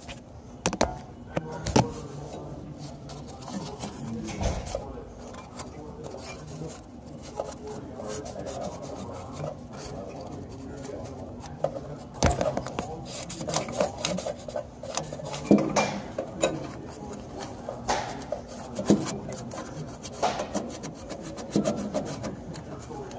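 Hand work with tools: repeated scraping and rubbing, broken by scattered sharp clicks and knocks.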